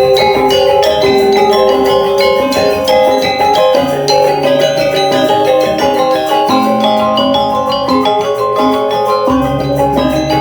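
Balinese gamelan music: bronze metallophones struck in fast, dense interlocking patterns over sustained deeper tones, with a deep low layer that fades out midway and comes back near the end.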